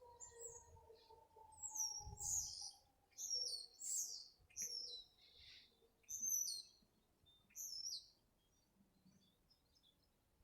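A small bird chirping repeatedly in short, high, downward-slurred notes, the loudest sound, from about half a second to eight seconds in. Underneath, an outdoor tornado warning siren winds down at the end of its test, its tone faintly falling in pitch and fading out within the first few seconds.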